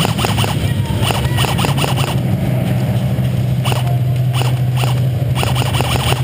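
Airsoft guns firing in short runs of sharp clicks, three times: at the start, about a second in, and about four seconds in. A steady low hum runs under them.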